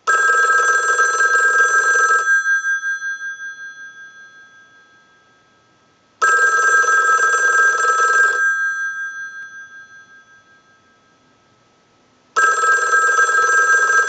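ITT 500 rotary desk telephone's bells ringing in on a ring cycle sent from a telephone analyzer: three bursts of about two seconds each, about six seconds apart, the bells ringing on and fading after each burst. The phone's bell circuit is ringing in properly.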